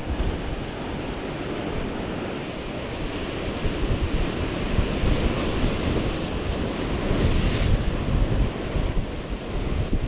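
Heavy storm swell breaking and washing over shore rocks in a steady churning rush, swelling louder about halfway through as a big wave crashes.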